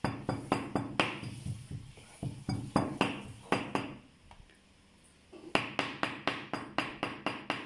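Chef's knife mincing raw beef on a thick round wooden chopping block: uneven knocks of the blade on the wood for about four seconds, a short pause, then a fast steady run of about five chops a second.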